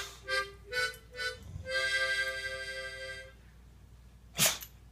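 Harmonica playing three short chords, then one chord held for about a second and a half. A short sharp noise sounds near the end.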